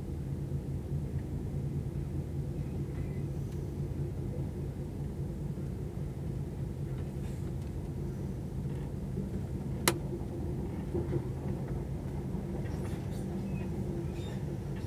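Night Riviera sleeper train running at speed, heard from inside the carriage: a steady low rumble, with a single sharp click about ten seconds in.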